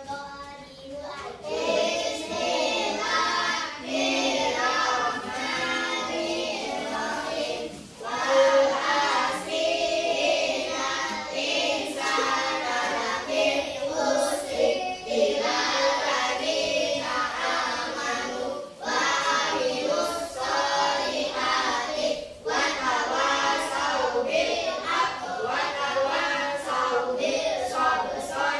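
A class of young children chanting a closing prayer together in unison, in phrases with brief breaks.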